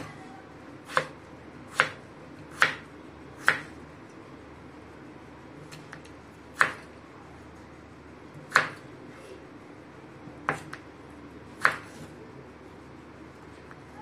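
Large kitchen knife cutting through raw potato and striking a wooden cutting board: about nine sharp knocks, the first four about a second apart, the rest a few seconds apart.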